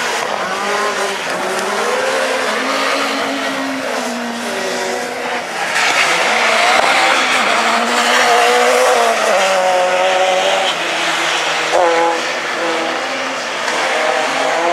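Peugeot 208 rallycross car's engine revving hard, its pitch climbing and dropping repeatedly with gear changes and throttle lifts. About six seconds in, a louder rush of noise joins it as the car powers out of the loose-surface corner.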